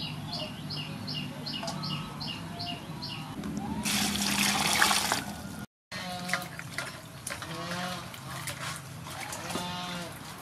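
Water splashing and sloshing in a metal basin as vegetables are washed by hand, loudest in a burst about four to five seconds in. A bird chirps rapidly and repeatedly in the first few seconds.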